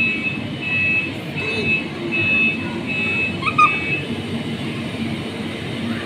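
Electronic beeping: a high steady tone in short pulses, about two a second, stopping about four seconds in, over the steady din of an indoor play area and arcade.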